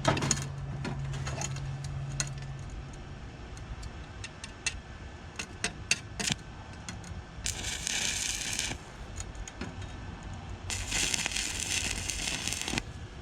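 Stick welder's arc crackling and hissing in two runs, one of about a second past the middle and one of about two seconds near the end, as pinholes in an exhaust weld are filled. Scattered small clicks and taps come before.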